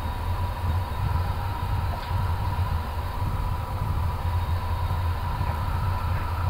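Steady flight-deck noise of an Airbus A350 taxiing with its engines at idle: a constant low rumble with a thin steady whine above it.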